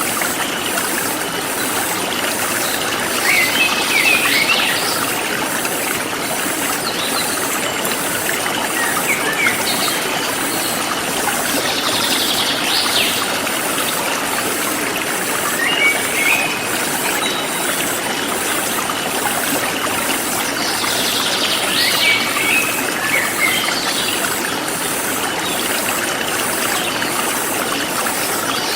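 Forest stream flowing steadily, with songbirds giving short bursts of chirping calls five or six times and insects keeping up an even, fast high-pitched pulsing chirr.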